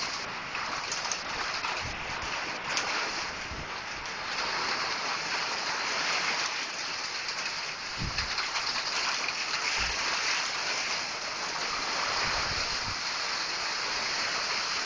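Steady hiss of rain falling, picked up by a phone microphone, with a few brief low thumps on the microphone.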